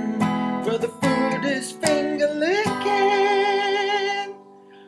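Outro jingle: acoustic guitar strummed in quick chords under a sung line. About two and a half seconds in it moves to one long held note with vibrato, which drops away shortly before the end.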